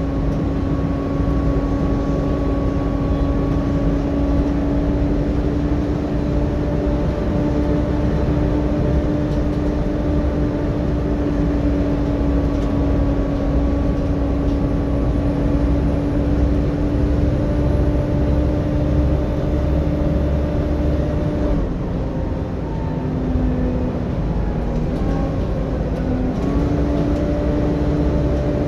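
Volvo B7TL bus heard from inside the saloon while under way: the engine drones and the cooling fan gives a loud, steady whine. About three-quarters of the way through, the whine dips lower in pitch and wavers for a few seconds, then comes back up to its steady note.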